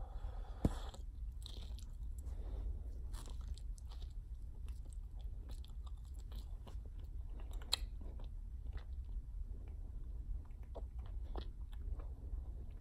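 A large bubble gum bubble bursts with a single sharp snap under a second in. Then the gum is chewed with many small irregular clicks, and one more sharp snap comes about two-thirds of the way through.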